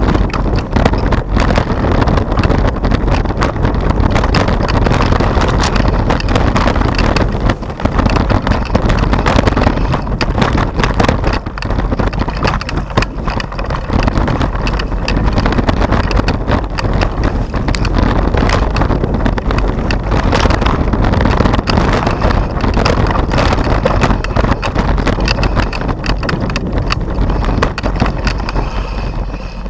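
Mountain bike riding fast down a rough dirt singletrack, its frame and parts rattling and knocking constantly, with tyre noise and wind buffeting on the microphone of a handlebar-mounted camera.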